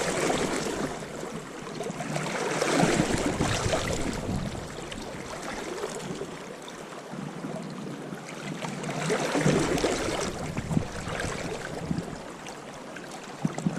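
River water flowing close by, a steady rush that swells twice: a couple of seconds in and again past the middle.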